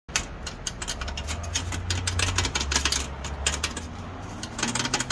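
Toyota Vellfire (20 series) engine running, a low hum with a rapid, uneven ticking rattle over it. The owner suspects the rattle comes from a gap in the heat shield where its clips have deteriorated.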